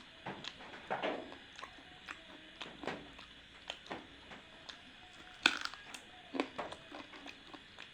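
Chicken being chewed close to the microphone: irregular wet crunches and clicks of biting, about one or two a second, the loudest about five and a half seconds in.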